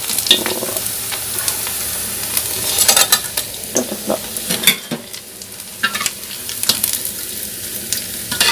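Cassava fritters sizzling in hot oil in a steel wok, with a steady hiss. A metal spatula scrapes and knocks against the wok now and then as the fried fritters are lifted out.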